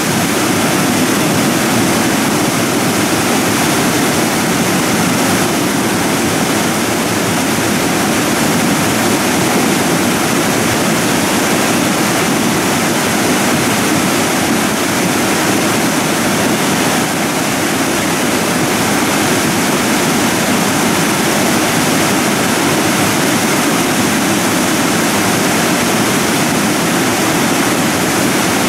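Debris flow of mud and rock surging down a channel, a steady rushing noise without let-up.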